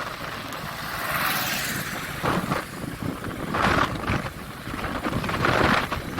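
Motor vehicle engine noise with uneven surges that rise and fall several times.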